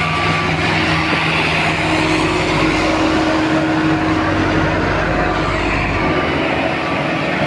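Heavy diesel construction machinery running steadily with a loud, continuous engine drone.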